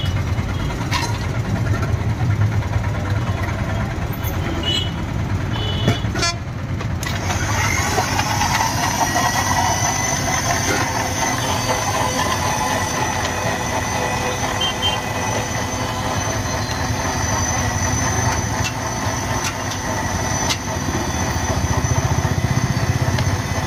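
Electric countertop blender starting up about seven seconds in and then whirring steadily as it blends bananas, milk and Boost malt powder into a milkshake, over street traffic.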